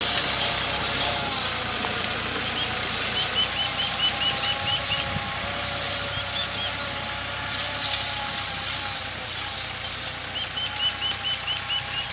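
Massey Ferguson 260 tractor's three-cylinder diesel running steadily under load while pulling a disc harrow through dry soil, growing slightly fainter as it moves off. Two short runs of quick high chirps come over it, about three seconds in and again near the end.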